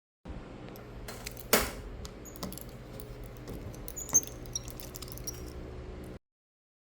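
A string of small clicks and light taps over a steady low hum. A louder click comes about a second and a half in and another about four seconds in. The sound cuts in and cuts off suddenly.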